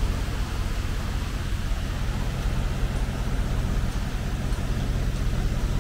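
Diesel truck engine running steadily, a low hum with a steady hiss over it.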